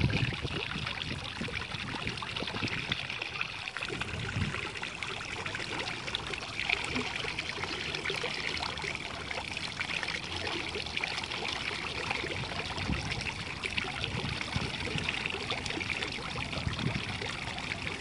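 Water from a tiered stone fountain trickling and splashing steadily into its basin.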